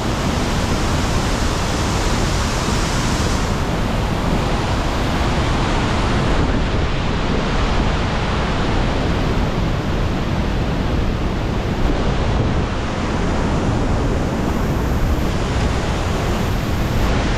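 Waterfall pouring: a steady, loud rush of falling water that hides everything else.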